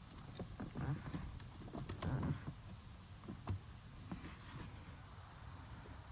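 Scattered light clicks and knocks of hands working on the fuel pump's connectors, busier in the first few seconds and then sparser.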